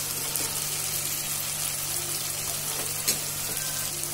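Chopped vegetables and tomatoes sizzling in ghee in an open aluminium pressure cooker, a steady hiss, with one light click about three seconds in.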